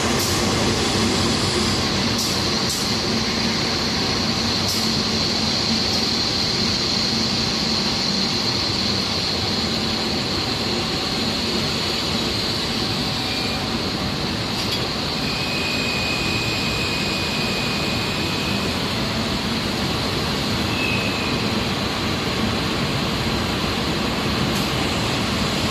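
Steady running noise of glass-processing machinery: a continuous hiss with a constant high whine, a few faint clicks, and a brief thin tone about two-thirds of the way through.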